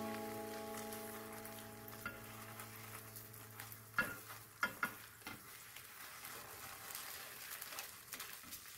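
Egg frying with a faint sizzle in an oiled rectangular nonstick tamagoyaki pan as the rolled omelette is turned with a spatula and chopsticks. A few sharp clicks of the utensils against the pan come around the middle.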